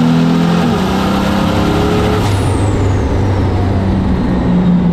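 Diesel drag truck's engine heard loud and steady from inside the cab. About two seconds in, a high whistle sets in and falls steadily in pitch: the turbo winding down.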